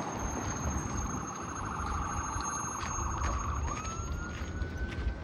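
A siren: a fast pulsing tone that, about three and a half seconds in, sweeps up and holds a steady higher tone, over a low rumble.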